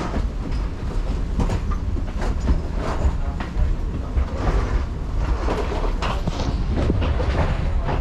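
Hard-shell rolling suitcase wheels rumbling along a jet bridge floor, with footsteps and irregular clacks throughout.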